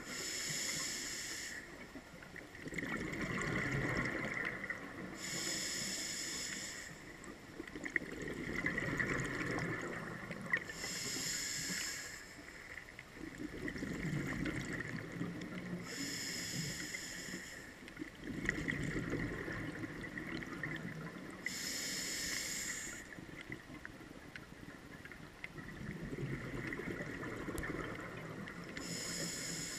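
Scuba diver breathing through a regulator: a hiss on each inhale, then a low bubbling rumble as the exhaled air leaves the regulator, repeating about every five seconds, heard underwater.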